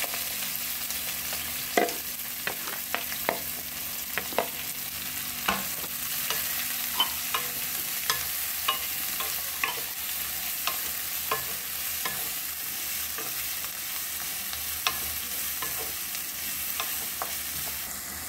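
Chopped onions sizzling in hot sesame oil in a nonstick kadai, a steady frying hiss. A wooden spoon stirs them, tapping against the pan at irregular moments.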